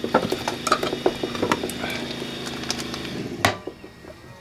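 Frozen beef short ribs being set into a ceramic slow-cooker crock, with a run of small knocks and scrapes, then one sharp clink about three and a half seconds in as the glass lid is set on. A steady low hum runs underneath.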